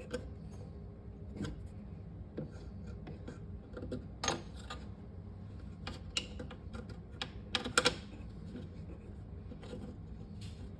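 Scattered clicks, taps and small knocks of tools and hard plastic parts being handled while a refrigerator roller wheel assembly is refitted. The loudest knock comes about four seconds in, and a quick cluster of sharper clicks near the end, over a steady low hum.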